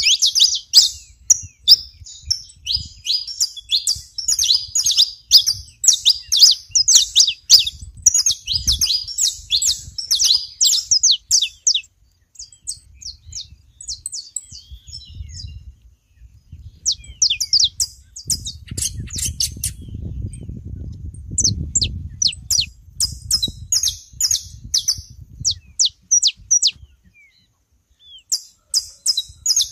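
Saffron finches chirping: rapid runs of short, sharp, high chips, thinning out for a few seconds midway and then picking up again. A low rumble sits underneath for a few seconds past the middle.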